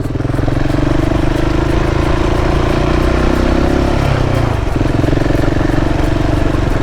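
KTM 690's single-cylinder engine running steadily while under way, easing off briefly about four seconds in and then pulling again.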